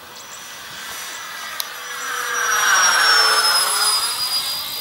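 Electric ducted fans of an XFly J-65 model jet flying past: a rushing whine that swells to its loudest about three seconds in and then fades, its pitch dropping as the jet goes by.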